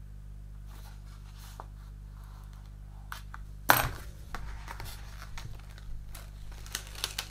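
Decal sheet and its plastic bag handled by hand: a sudden loud paper-and-plastic snap a little over halfway through, then light rustling and scraping of the sheet, over a steady low hum.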